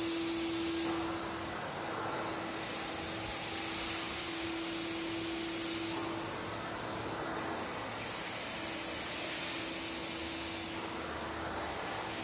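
Canister vacuum cleaner running steadily with a constant motor hum, its floor nozzle sucking across rough concrete stair treads. The rushing-air hiss brightens and dulls every couple of seconds as the nozzle is moved over the steps.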